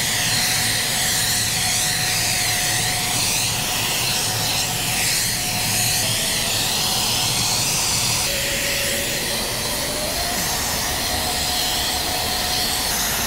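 Compressed-air static neutralizer gun blowing a steady hiss of air over the car's panels to clear static before painting, with a faint whistle under the hiss.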